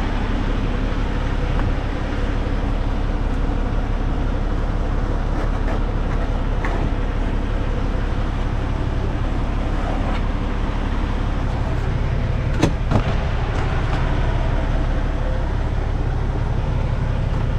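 Semi truck's diesel engine idling steadily, a low even rumble heard inside the cab, with two sharp clicks close together about thirteen seconds in.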